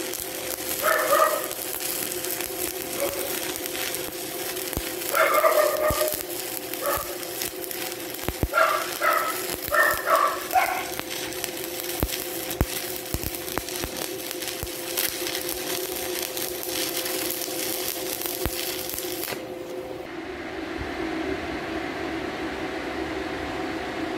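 Stick welding arc (shielded metal arc welding) crackling steadily with sharp pops. A dog barks in several short bursts during the first half. The crackle cuts off abruptly about twenty seconds in, leaving a low hum.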